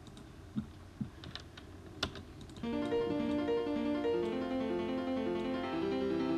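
A few sharp clicks, then about two and a half seconds in an arpeggio from the FL Keys piano plugin starts playing: quick repeating keyboard notes stepping up and down in a looping pattern.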